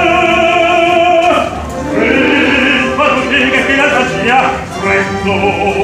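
A male tenor singing opera, holding one long note for about the first second and a half, then going on with a phrase of shorter notes that rise and fall.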